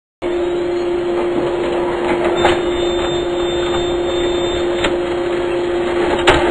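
Logo-intro sound effect: a steady machine-like rumble with a constant hum, a few short clanks, and a sharp clap-like hit near the end.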